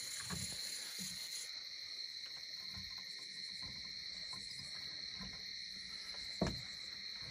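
Steady high-pitched chorus of night insects such as crickets, with a few dull low knocks, the loudest about six seconds in.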